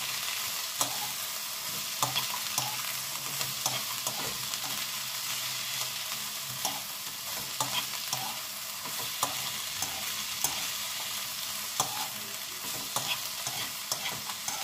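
Garlic scapes, onion and garlic sizzling in hot oil in a nonstick wok as they are stir-fried: a steady hiss with scattered light clicks and taps from the stirring.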